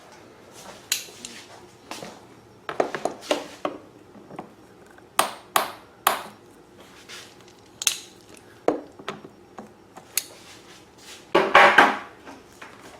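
Pliers working a hose clamp on a fuel hose: a string of sharp metallic clicks and clanks, with a louder clatter near the end.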